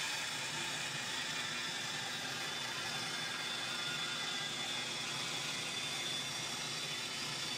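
Bandsaw running and resawing a thick board fed along the fence, with a used, slightly dull 3-teeth-per-inch hook blade; a steady, even noise of the cut.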